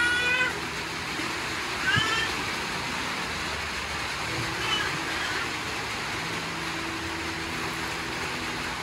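A cat meowing: a drawn-out, wavering meow ends just after the start, a shorter meow comes about two seconds in, and a faint one comes near five seconds, over a steady hiss.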